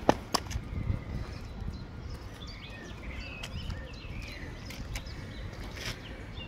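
Three sharp smacks within the first half second as a kick finishes, the first the loudest, then songbirds chirping in short rising and falling calls over a steady low outdoor rumble.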